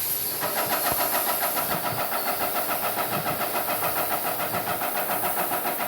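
Airless paint sprayer switched on and running: its pump motor starts abruptly and settles into a fast, even pulsing, with the hiss of sealer spraying from the gun.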